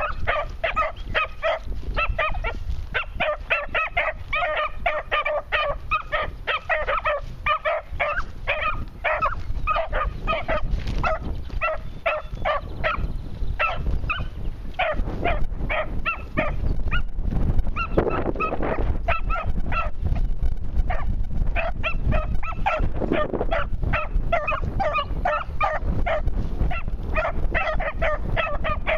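Beagle pups baying on a scent trail: quick, high-pitched yips repeated several times a second, almost without a break.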